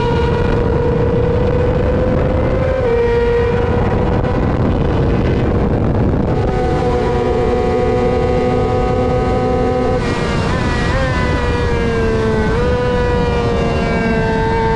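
2020 Yamaha R6's inline-four engine at high revs, heard onboard over heavy wind rush: it shifts up about three seconds in and holds flat out down the straight, with a second bike's engine alongside midway. Near the end the pitch falls in steps as it brakes and downshifts for the corner.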